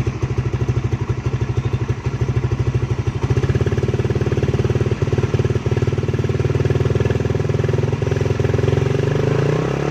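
Suzuki Raider 150 Fi's single-cylinder four-stroke engine running through a RedLeo aftermarket exhaust canister. It idles with a steady pulse, the throttle opens about three and a half seconds in and is held, then it eases off near the end with the pitch falling. There is no popping on the overrun.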